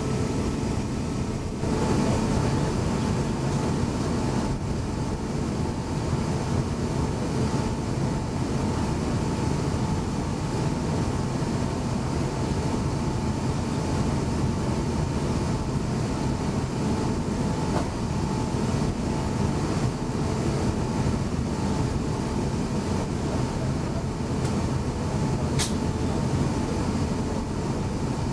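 Steady cabin rumble of an Airbus A350-900 taxiing after landing, its Rolls-Royce Trent XWB engines at low power and the gear rolling on the taxiway. A faint steady whine runs through it, and it gets louder about two seconds in.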